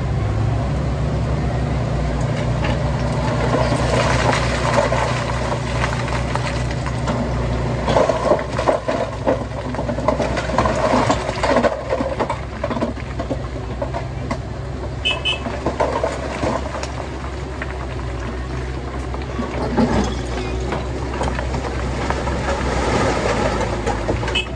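Heavy diesel machinery engine running steadily, with stretches of louder rattling and knocking in the middle and again near the end.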